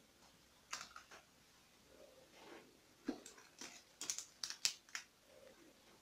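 Plastic bottle-cap knobs on a cardboard combination-lock safe being turned by hand: light clicks and scrapes, a couple about a second in and a quick cluster between about three and five seconds in.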